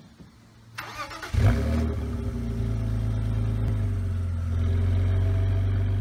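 BMW E46 M3's straight-six engine cranked on the starter and catching about a second and a half in with a loud flare of revs, heard at the quad exhaust tips. It then settles into a steady idle.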